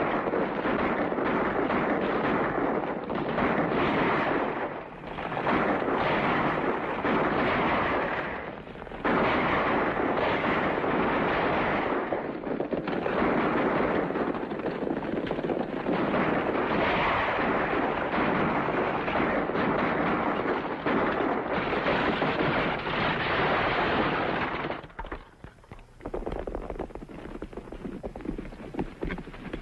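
Rapid rifle and pistol gunfire mixed with galloping hooves on an old film soundtrack, near continuous with short lulls about 5 and 9 seconds in. About 25 seconds in it drops to quieter, separate hoofbeats.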